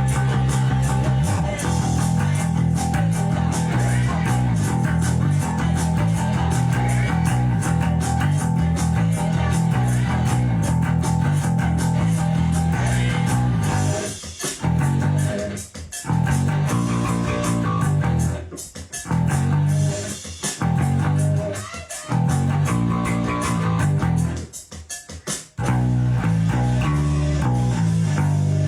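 Electric bass guitar played along with a 1970s hard-rock band recording, the bass notes strong and steady. The whole band stops dead in short breaks about halfway through, again a few seconds later, and once more near the end.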